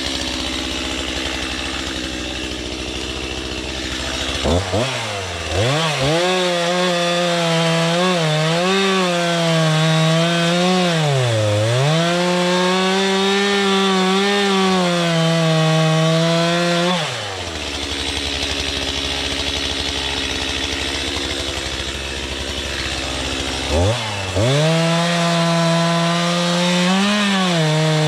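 Chainsaw idling, then revved up about four seconds in and cutting wood, its engine pitch dipping and recovering under load. It drops back to idle about halfway through and revs up to cut again near the end.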